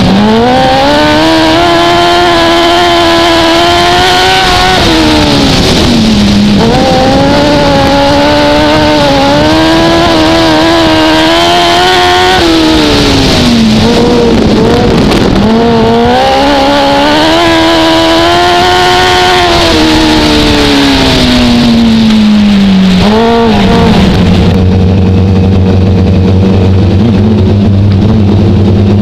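Dwarf race car's motorcycle engine heard from onboard, revving up on the straights and dropping off into the turns over and over as it laps a dirt oval. Near the end it holds one steady low pitch.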